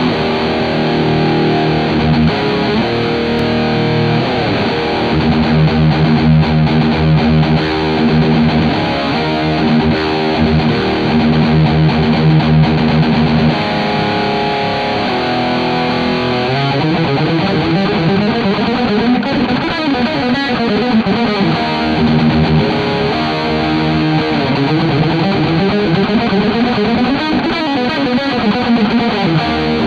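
High-gain distorted electric guitar: a Gusta GTL Telecaster-style guitar played through its Astro Burning Blade mini-humbucker in the bridge position. It plays sustained notes and riffs, then fast single-note runs from about halfway through.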